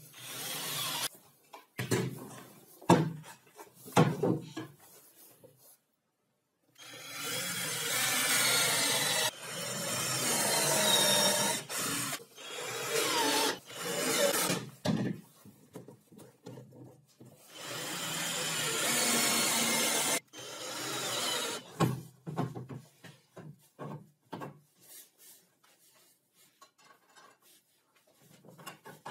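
Cordless drill boring into plywood in several runs of a few seconds each, with sharp knocks and small clicks of handling wood and clamps between them.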